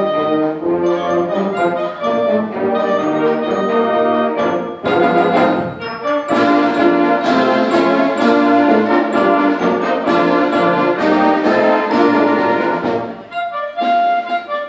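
High school symphonic band playing, with brass prominent in sustained chords. Sharp percussion strikes join about five seconds in. The full sound thins out shortly before the end.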